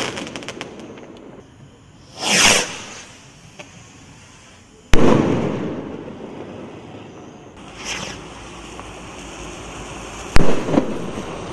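Firework rockets from an Afterburner rocket pack. A burst's crackle fades at the start. Then, twice, a rocket goes up with a short rushing whoosh and bursts with a sharp bang about two and a half seconds later; the second burst crackles briefly.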